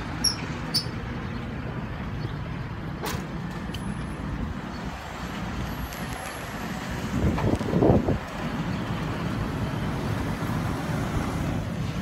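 Carrier rooftop package air-conditioning unit running just after start-up, its compressor and condenser fan giving a steady low hum, with a few sharp clicks in the first three seconds and a brief louder noise about seven to eight seconds in.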